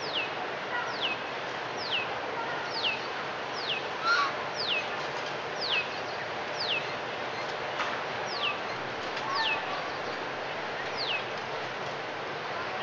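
A bird repeating a short, high whistle that falls in pitch, about once a second, with a few quieter lower calls beneath it over a steady outdoor hiss.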